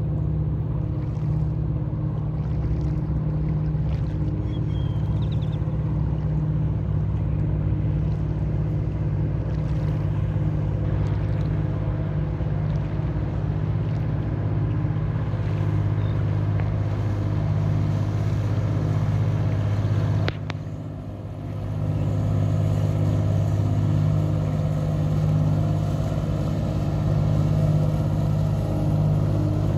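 Shrimp trawler's diesel engine running steadily as the boat motors past: a low, even drone that dips briefly about two-thirds through and grows slightly louder near the end as the boat draws closer.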